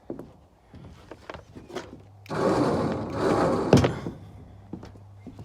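Winch cable being readjusted by hand: scattered metal clicks, then about two seconds of dense rattling with a sharp clank near its end.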